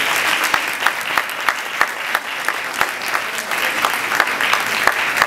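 Audience applauding: a steady wash of clapping with many sharp individual claps standing out close by.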